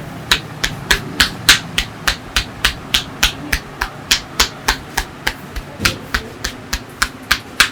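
Percussive massage strokes: hands slapping down on the body in a steady rhythm, about three to four sharp slaps a second.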